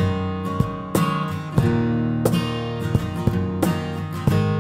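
Background music: a strummed acoustic guitar playing chords in a steady rhythm.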